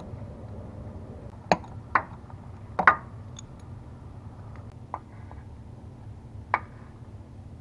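About five sharp metallic clinks, irregularly spaced, the loudest a quick double about three seconds in, from a wrench and terminal nut being worked at a starter motor's cable terminal. A low steady hum runs underneath.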